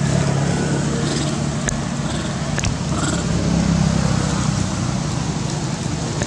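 Steady low hum over a noisy rumble, with a few faint sharp clicks.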